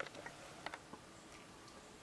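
A few faint clicks of buttons pressed on a Canon EOS Rebel SL2 camera body as its settings are entered, the sharpest just under a second in.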